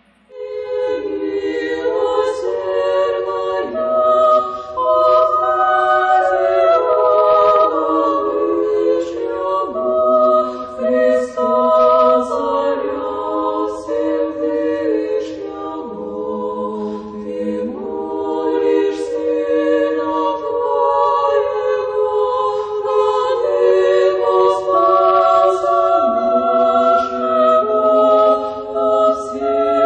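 A cappella choir singing slow, held chords, several voices in harmony.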